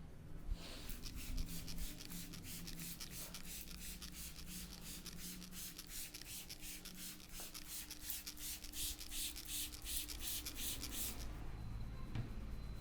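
Fingers rubbing hair briskly against the scalp during a head massage: a fast, even, scratchy rustle of about four strokes a second, which stops about eleven seconds in.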